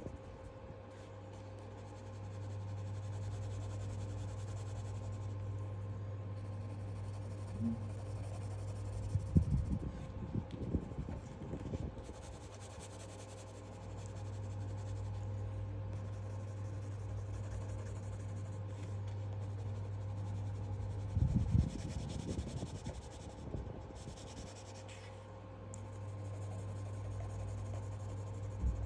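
A pencil scratching and shading on sketchbook paper, in uneven spells of strokes that grow loudest twice, about a third of the way in and again about three quarters in. A steady low hum runs underneath.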